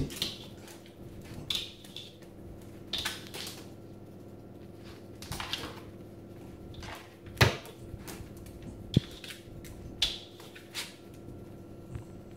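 A Maltese puppy's claws scratching and tapping at a glass-paned door in short bursts every second or two, with one sharp knock loudest about halfway through.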